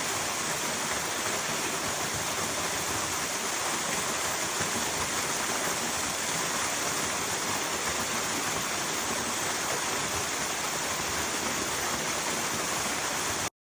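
Steady rushing water, an even hiss, that cuts off abruptly just before the end.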